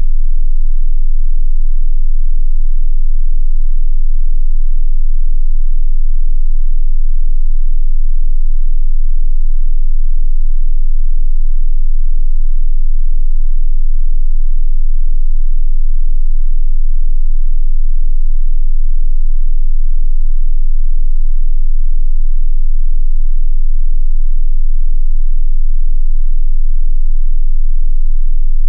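A loud, steady, unchanging 18.98 Hz tone: an infrasonic 'ghost pitch' just below the usual range of human hearing.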